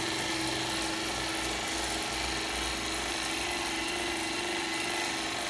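Steady mechanical hum with one constant tone from a running short path wiped film distillation unit, its pumps and motor going without change.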